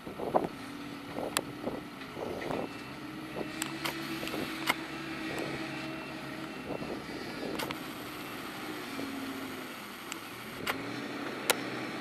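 Claas Scorpion telehandler's diesel engine running as it travels over stubble with a load of straw bales, its note rising and falling a few times, with occasional sharp clicks and knocks.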